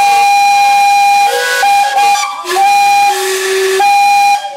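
Several steam locomotive whistles blowing together in a loud chord of different notes. One high note is held with brief breaks while the lower notes change pitch, and they all stop together near the end.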